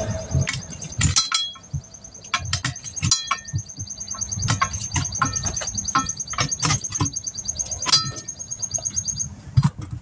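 Steel tire irons clinking and knocking against a steel wheel rim in many sharp strikes as a tire is pried off by hand. A bird's high, rapid trill runs behind it and stops about nine seconds in.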